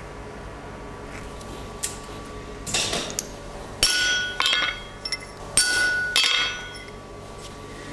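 Hammer striking a centre punch to mark a 16 mm square steel bar lying on an anvil: several sharp metallic taps with a ringing tone, the loudest about four and five and a half seconds in.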